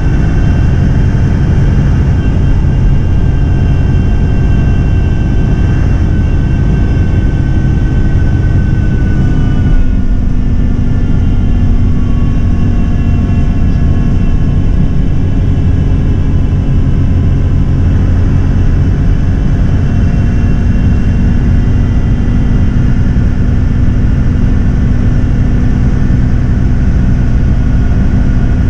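Daewoo BH117H coach's diesel engine running under way, heard from inside the cabin: a steady loud drone whose pitch drops suddenly about ten seconds in and then holds lower.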